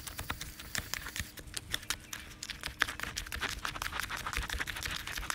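Garden trowel stirring and scraping wet potting mix of compost, perlite and sand in a plastic bucket: a quick, irregular run of gritty scrapes and clicks.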